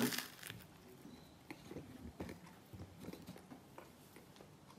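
A bite into a toasted, grill-pressed sandwich with one crisp crunch at the start, followed by soft, irregular chewing of the toasted bread.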